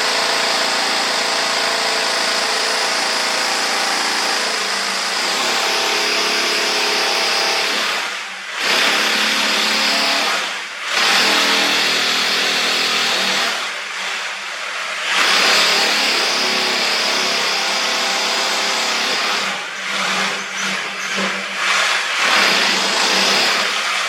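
Electric drill boring holes into a concrete wall, its motor whining under load with a grinding hiss. It runs in long stretches, stops briefly a few times, and starts and stops in short bursts near the end.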